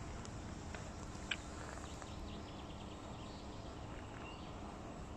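Quiet outdoor ambience: an even background hiss with a few faint, short chirps and a single sharp click a little over a second in.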